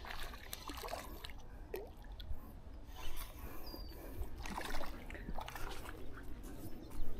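Scattered light clicks, rustles and small splashes as a small hooked trout is reeled in on light tackle and brought to the bank.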